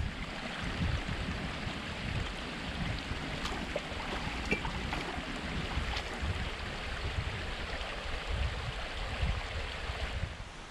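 Gas camping stove burner running with a steady hiss, with wind buffeting the microphone in low gusts.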